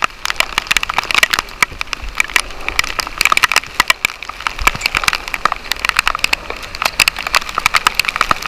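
Storm rain pelting the camera and microphone: a loud, dense, irregular crackle of sharp hits.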